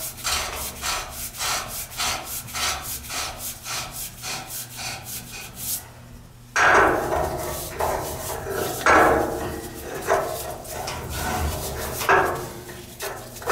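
Threaded black steel pipe and elbow being screwed together by hand and with a pipe wrench: metal threads scraping. There is a run of short scraping strokes, about two or three a second, then after a brief break a louder stretch of creaking and scraping.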